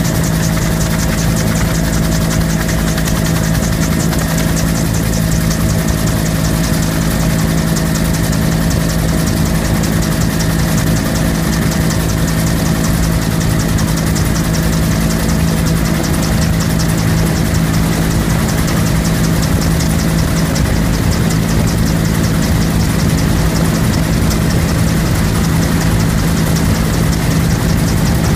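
Bell UH-1 Huey helicopter in flight, heard from inside the cabin: its turbine engine and two-bladed main rotor make a loud, steady drone.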